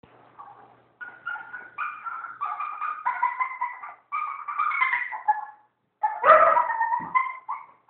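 Maltese puppy making a weird, monkey-like chattering call instead of whining: runs of short, high pitched cries broken by brief pauses, loudest about six seconds in.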